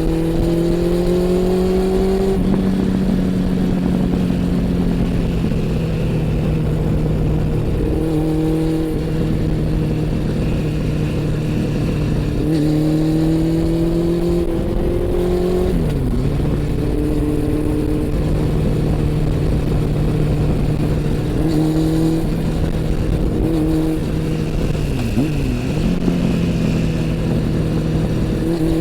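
Honda CB400 Super Four's inline-four engine and exhaust under way, revving up twice, in the first two seconds and again around the middle, each climb ending in a sudden drop in pitch at a gear change, with steady running between and a brief dip in revs near the end.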